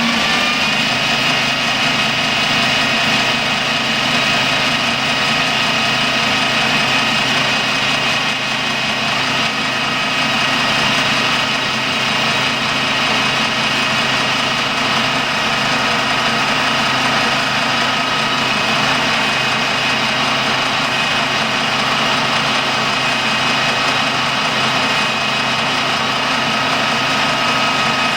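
Colchester lathe's motor and headstock gears running steadily at speed, a constant machine hum with high whining tones. It finishes coming up to speed in the first moment.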